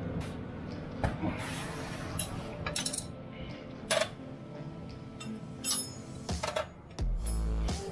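Small metal clinks and clatters of hand tools and hardware against metal, a handful of separate sharp ones. A low steady sound starts near the end.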